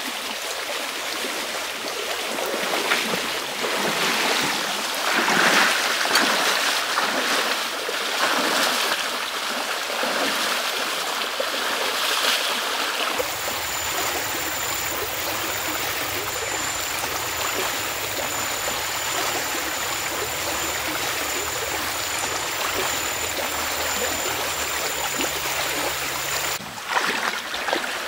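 A small, fast-flowing stream rushing over stones between grassy banks. About halfway through, this gives way abruptly to a steadier background with a continuous high-pitched tone and a low hum. Near the end comes a short burst of splashing as someone wades through shallow water with a hand net.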